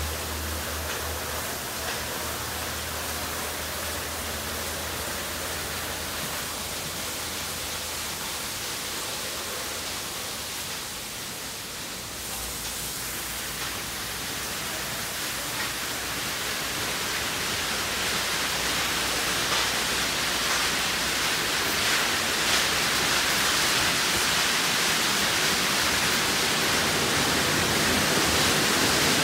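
Water jets and spray of an automatic tunnel car wash, a steady hiss that grows louder over the second half. A low machine hum underneath fades out about six seconds in.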